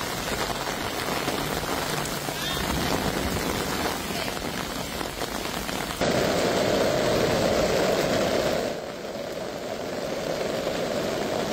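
Rain and running water on a flooded street, a steady hiss. About halfway through it changes abruptly to a louder, fuller rush of floodwater pouring from a storm-drain outlet into a swollen river. A couple of seconds later it drops back to a quieter flowing sound.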